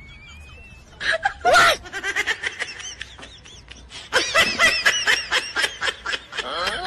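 Laughter: a voice laughing in quick, repeated pulses, starting about a second in and getting louder from about four seconds in.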